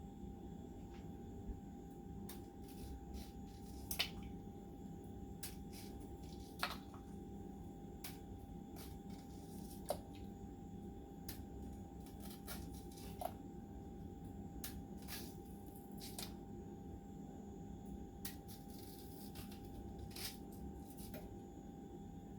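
Faint steady low hum with scattered light clicks and taps, about twenty of them, the sharpest about four and ten seconds in. These are the sounds of a pot of yam set to cook and being handled.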